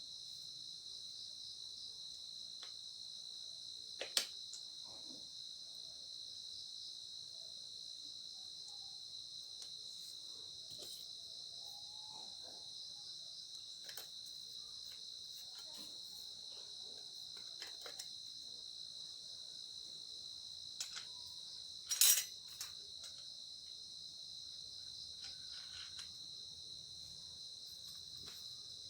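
Steady high-pitched insect chorus, like crickets chirping, with a few sharp clicks, the loudest about four seconds in and a short cluster around twenty-two seconds in.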